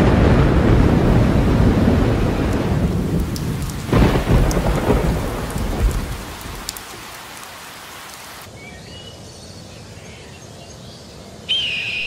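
Thunderstorm: rolling thunder over steady rain, with a second loud thunderclap about four seconds in, dying away by about eight seconds. After that it is quieter, with a few faint bird chirps, and a high bird call starts near the end.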